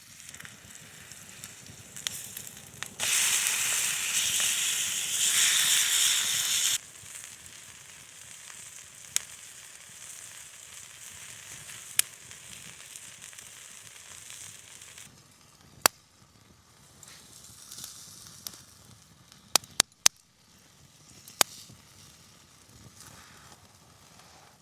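Food sizzling over a campfire: a loud sizzle starts about three seconds in and lasts about four seconds, then settles to a softer sizzle. In the second half it goes quieter, with a few sharp pops and crackles.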